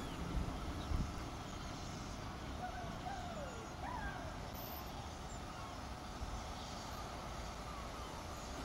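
Steam-hauled train moving slowly through a station: a low steady rumble with no exhaust beats, and a few faint bird chirps about halfway through.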